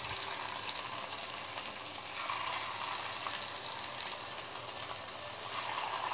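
Chicken pakoda batter pieces deep-frying in hot oil in a kadai: a steady sizzle with many small crackles, the batter freshly dropped into oil that has come up to heat.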